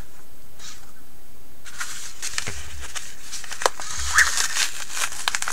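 Padded bubble-mailer envelope crinkling and crackling as it is picked up and handled, starting about two seconds in, with irregular sharp crackles and a few soft thumps.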